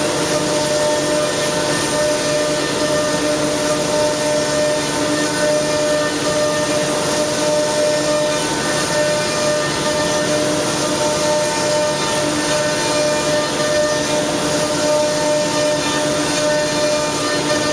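YL 12242-2R CNC router running steadily, a constant spindle whine over the even noise of the machine cutting wood.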